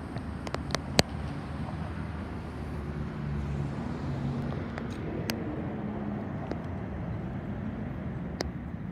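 Indian Thunderstroke 116 V-twin engine idling steadily, with a few sharp clicks over it, the loudest about a second in.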